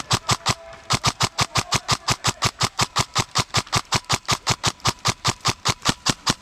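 Airsoft gun firing a rapid string of shots, about five or six a second: a quick three, a short pause, then steady fire for about five seconds.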